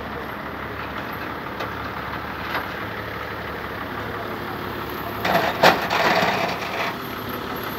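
Heavy diesel truck engine idling steadily. Near the end comes a louder rush of noise with a sharp knock in it.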